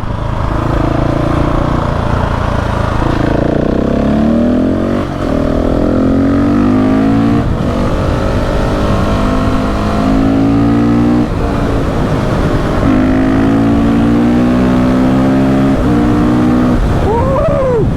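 KTM 690 SMC R supermoto's big single-cylinder engine accelerating hard. The pitch climbs and drops back at each of several quick upshifts, and eases off near the end.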